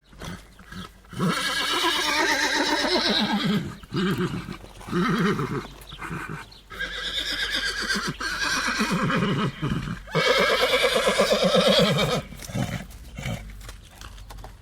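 A horse whinnying several times, each call a second or more long with short breaks between.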